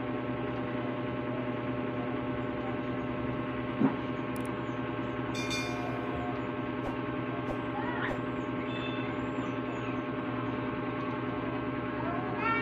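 Steady electric hum with many layered tones from the small motor of a rotating display turntable, with a single sharp click about four seconds in.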